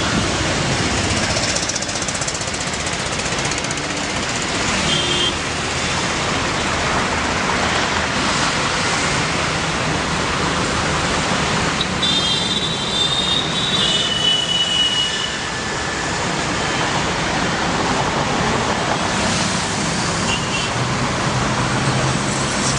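Steady road traffic noise, with a few brief high tones about five seconds in and again around the middle.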